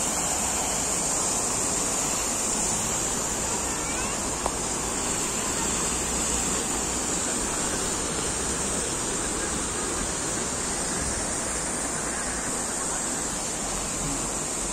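Jet fountain splashing steadily into its basin: a constant rush of falling water with a bright hiss of spray.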